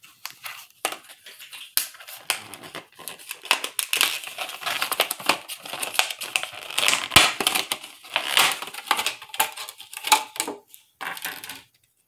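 Clear plastic blister pack crackling and crinkling as it is pried and torn off its cardboard backing card, in a long run of irregular crackles that stops shortly before the end.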